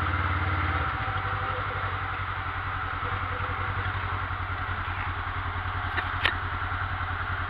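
ATV engine running at low speed, louder for about the first second under throttle, then settling to a steady, even putter. A couple of sharp knocks come about six seconds in.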